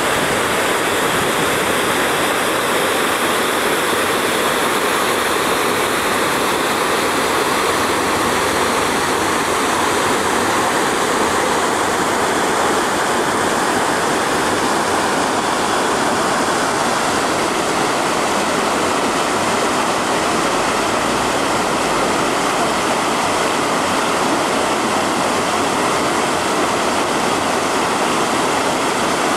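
Steady rush of water flowing down a narrow canal.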